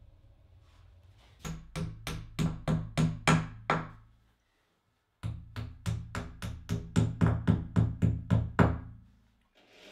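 Hammer blows in two quick runs of steady strikes, about three to four a second, each run getting louder, with a short ring after every blow. The sound cuts off abruptly for about a second between the runs.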